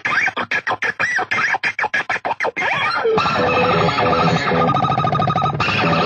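Electronic meme sound effect: rapid chopped, stuttering sounds with swooping pitch, breaking off about three seconds in into a dense, distorted electric-guitar-like riff of quickly repeated notes.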